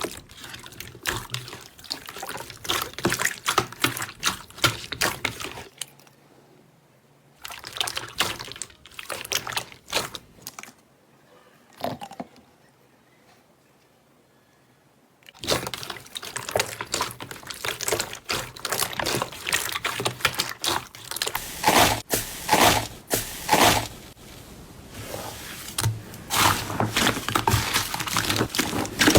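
Slime being squished and pressed: dense wet crackling and squelching clicks. It stops for a moment about six seconds in and again for a few seconds from about twelve seconds in.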